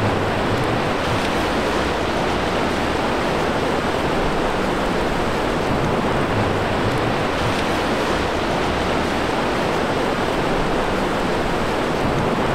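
Surf breaking along a beach: a steady, even wash of wave noise.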